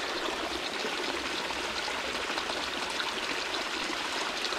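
Creek water running and trickling over rocks, a steady rushing sound.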